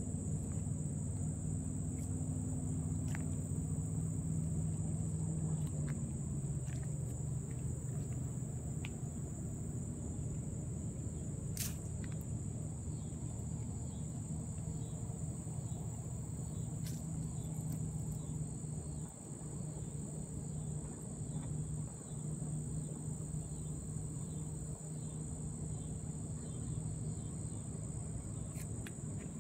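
Steady high-pitched chorus of crickets, unbroken throughout, over a low steady hum, with a few faint clicks.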